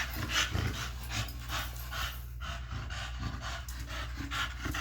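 An American Bully dog panting fast and steadily, about three breaths a second, over a steady low hum.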